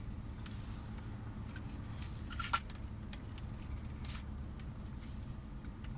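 Quiet car-cabin hum, steady and low, with scattered faint ticks and one sharper click about two and a half seconds in.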